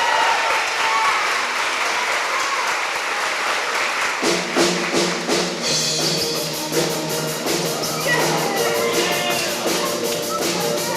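Audience applauding. About four seconds in, the instrumental intro of the next song starts, with sustained chords and a steady ticking beat.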